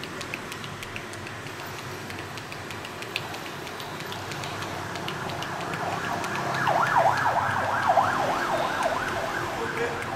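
A siren comes in about halfway through over a steady street background: a fast yelp warbling up and down about four times a second, loudest a little after it starts, then fading. Faint light ticks are scattered throughout.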